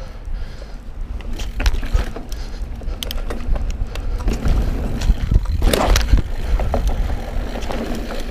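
Mountain bike ridden over a dirt trail: wind rumble on the camera microphone, with the bike rattling and knocking over bumps and a louder rough burst of noise about six seconds in.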